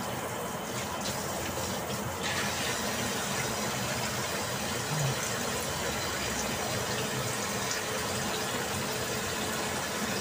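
Tap water running steadily into a sink and splashing over fish being rinsed under the stream; the splashing gets fuller and a little louder about two seconds in.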